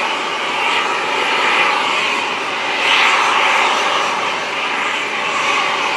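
Aircraft engine noise, a steady rushing sound that swells briefly about halfway through.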